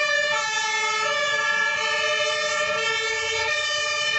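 Fire truck siren sound effect: a steady chord of electronic tones whose upper notes switch every half second or so, without a rising and falling wail.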